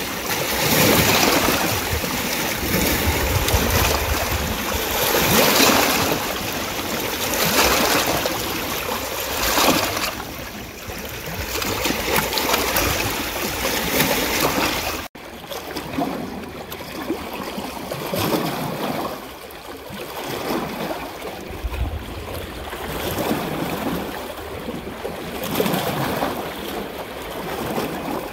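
Rushing water, a steady noise that swells and ebbs every few seconds. About halfway through it breaks off for an instant at a splice and comes back quieter.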